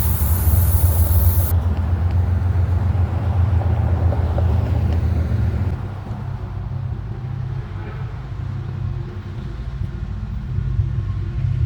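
Diesel locomotive engines running with a deep, steady rumble; the heaviest engine sound drops away about six seconds in, leaving a quieter rumble.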